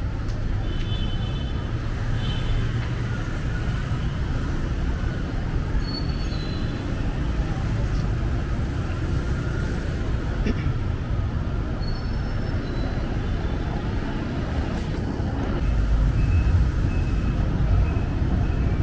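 Steady low rumble of city street traffic, cars and motorbikes going by on a wet road, getting somewhat louder near the end.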